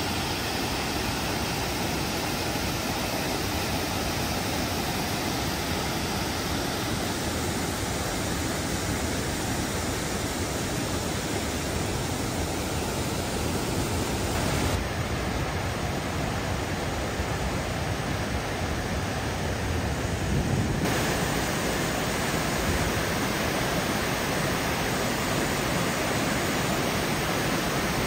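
Bousra Waterfall's falling water: a steady, even rush of noise. Its character shifts slightly for a few seconds past the middle.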